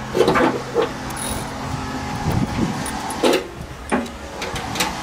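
A steady mechanical hum from a neighbour's tool that stops a little over two seconds in, with scattered sharp metallic clicks and knocks from a tap being turned by hand to clean paint out of bolt threads.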